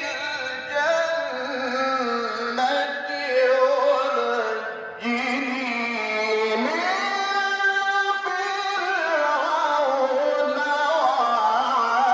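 A male Quran reciter chanting in melodic tajweed style, unaccompanied, drawing out long ornamented notes that bend up and down in pitch. The voice comes through a plain microphone with no added echo effects.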